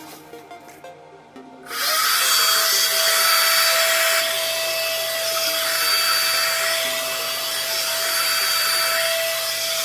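One-step hot air brush hair dryer switched on a little under two seconds in, then running steadily: a loud rush of air with a steady motor whine, its level swaying slightly as it is worked through the hair. It is on its low setting.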